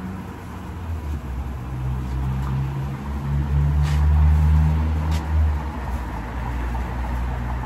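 Low, steady engine rumble of a motor vehicle, swelling louder about three and a half seconds in and easing off about two seconds later.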